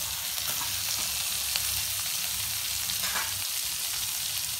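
Freshly added chopped onion and chilli frying in hot oil and butter in a kadhai: a steady sizzle with a few faint clicks.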